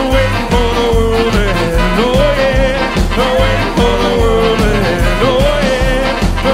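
An instrumental stretch of a song: a steady bass beat about twice a second under a lead melody that slides up and down.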